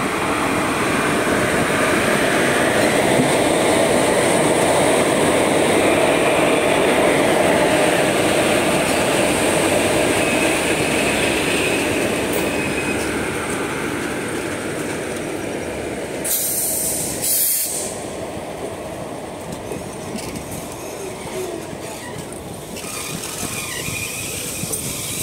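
Electric locomotive and passenger coaches of a departing train rolling past, a steady loud rumble of wheels on the rails that is loudest early on as the locomotive goes by and eases as the coaches follow. Two short hissing bursts come a little past halfway.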